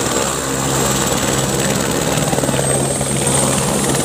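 AS350 Écureuil-type single-engine turbine helicopter running on the ground with its rotor at full speed just before lift-off: a steady high turbine whine over the rotor's regular chop and a low engine hum.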